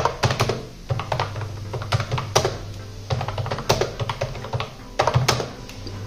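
Typing on an iGear KeyBee Pro wireless keyboard with round typewriter-style keycaps: irregular key clacks in bunches, with a few louder strikes. Background music plays underneath.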